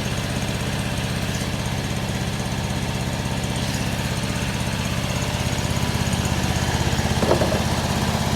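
Homemade sawmill's engine running steadily with an even low drone.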